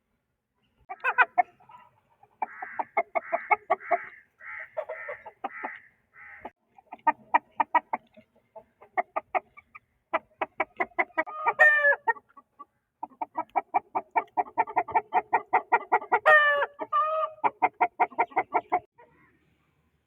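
Aseel chicken clucking in long, rapid runs of short clucks, several a second, with two brief rising-and-falling calls in among them, one near the middle and one later on.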